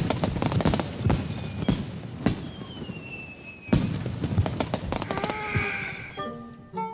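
Fireworks going off: a quick series of sharp bangs and crackles, with a rocket whistle falling slightly in pitch partway through and a fizzing crackle about five seconds in. The bangs end near the end, and light music takes over.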